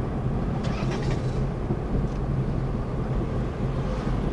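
Car engine and road noise heard from inside the moving car's cabin: a steady low hum, with a few faint clicks about a second in.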